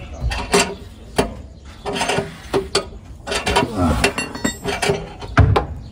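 Metal hand tools clinking and clicking at a car wheel: a wheel spanner knocking against the wheel nuts and rim in irregular sharp clinks, with a heavier thump near the end.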